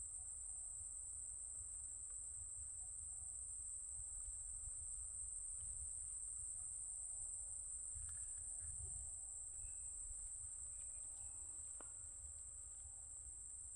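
Insects trilling in a steady high-pitched chorus, over a low rumble.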